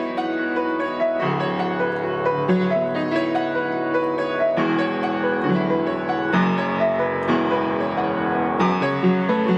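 Solo piano playing full chords, with new chords struck about once a second and left to ring.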